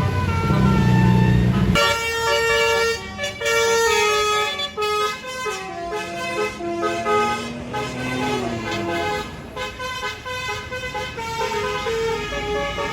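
Tour bus 'basuri' telolet horn, a multi-note air-horn set, playing a tune as a quick run of stepped notes. A low engine rumble underneath cuts off about two seconds in.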